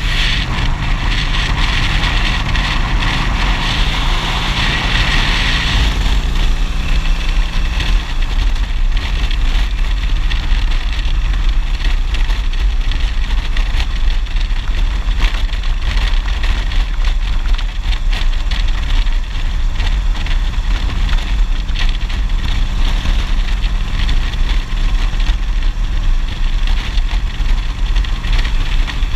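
Harley-Davidson V-twin motorcycle engine running steadily at cruising speed, heard from the rider's helmet with wind rushing over the microphone. The wind rush is stronger for about the first six seconds.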